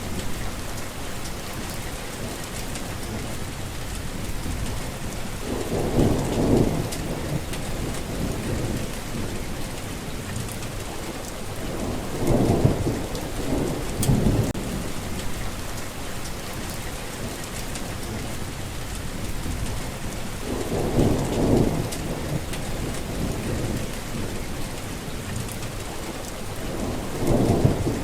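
Steady heavy rain falling, with low rumbles of thunder swelling up every six or seven seconds, about four times.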